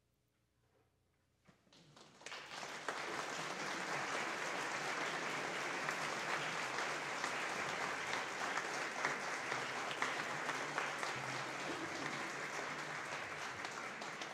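About a second and a half of near silence, then an audience starts applauding, quickly building to steady, dense clapping at the close of the piece.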